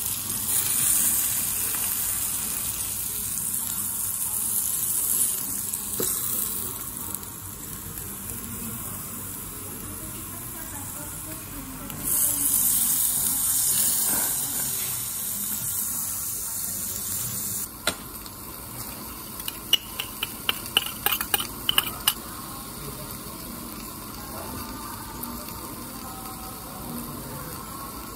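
Beef steak sizzling on a hot iron plate and a small tabletop grill, a loud high hiss that swells twice. The sizzling drops off abruptly about two-thirds through, followed by a run of sharp clicks.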